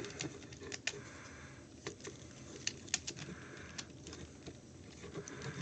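Hard plastic parts of a Transformers action figure clicking and knocking irregularly as its joints and panels are pegged, unpegged and rotated during transformation.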